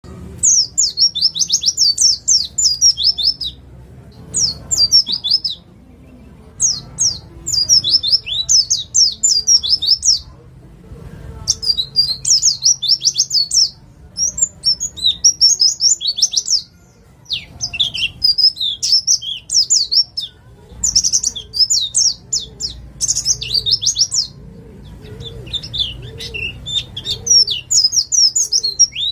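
Wild East Javan white-eye (pleci) singing its rapid 'nembak' song: fast runs of high, sharp chirps in phrases of one to three seconds, separated by short pauses.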